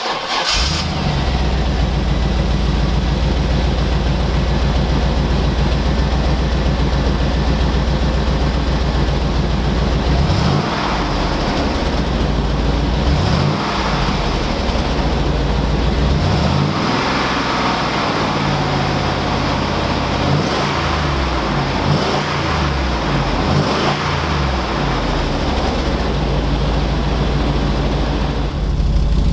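1999 GMC Yukon's 5.7L V8 idling steadily through an aftermarket exhaust, then blipped several times from about ten seconds in, each rev rising and falling back to idle, before it settles to idle again.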